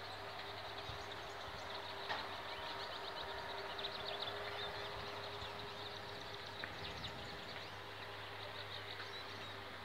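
Outdoor ambience: many small birds chirping and twittering over an even hiss, with a faint steady tone and a low hum underneath.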